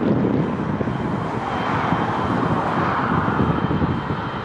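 Boeing 777 freighter's twin GE90 turbofans running as the jet rolls along the runway: a steady jet roar with a thin high whine above it.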